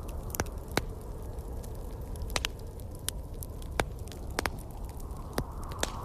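Wood fire crackling in a fireplace, with about ten sharp, irregular pops over a steady low rumble of wind.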